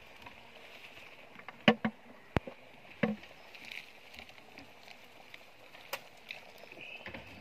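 Wooden hive box being handled and set down in the undergrowth: a few sharp knocks and clunks between about one and a half and three seconds in, over a faint steady high background hiss.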